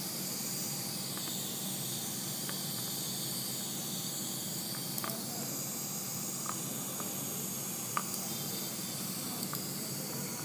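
Dental suction (saliva ejector) hissing steadily in the patient's mouth, with a few faint, scattered clicks from the metal hand driver being turned to seat a dental implant.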